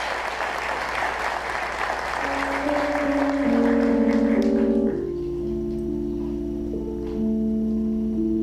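Audience applause that dies away about halfway through, under slow, held keyboard chords that change every couple of seconds, the intro to the next song.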